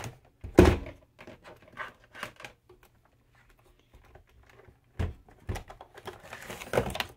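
Handling noises at a vacuum sealer and its plastic bag: a sharp knock about half a second in, scattered light clicks, two more knocks around five seconds, and a rustle of the plastic bag near the end.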